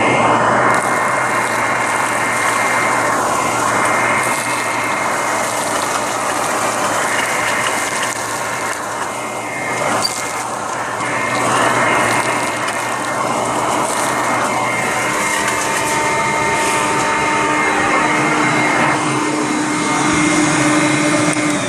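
Hoover Conquest commercial upright vacuum running with a hose attachment: a steady motor whine over loud rushing suction air that swells and dips as it picks up debris.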